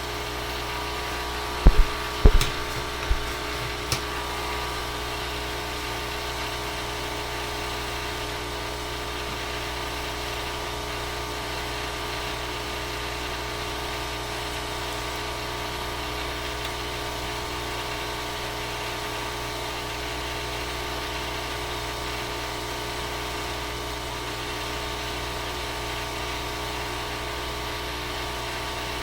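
Steady machine hum with a faint hiss, and a handful of sharp knocks between about two and four seconds in.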